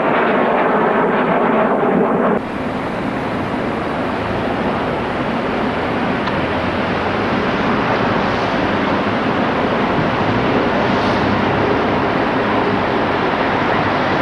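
A DB V 100-family diesel-hydraulic locomotive hauling passenger coaches runs into the station, giving a steady engine and running noise that slowly grows louder as it comes closer. A louder rushing noise cuts off suddenly a little over two seconds in.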